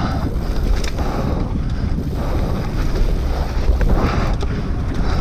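Wind rumbling on the microphone of a camera mounted on a mountain bike descending fast, with tyres rolling over a dry dirt trail and scattered clicks and knocks from the bike.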